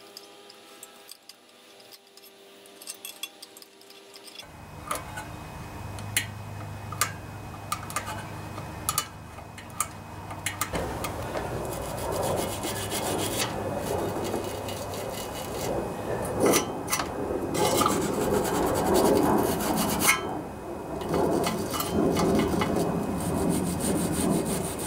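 Metal scraper scraping old gasket sealant off the valve-cover mating flange of a Honda GCV190 engine's cylinder head, a scratchy rasping with many small ticks. It starts about four seconds in and grows louder after about ten seconds.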